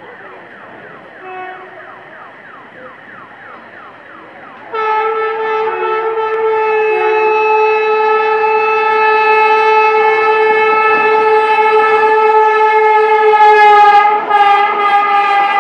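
Indian Railways electric locomotive sounding its horn in one long, loud, steady blast as an express train approaches and runs through the station. The blast starts abruptly about five seconds in and breaks briefly near the end as the locomotive passes close by.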